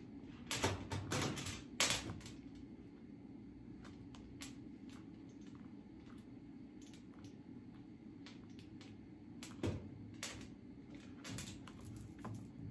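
Handling clicks and taps as a rubber slide sandal and a feather boa are worked by hand, a few sharp clicks in the first two seconds and again near the end, over a steady low hum.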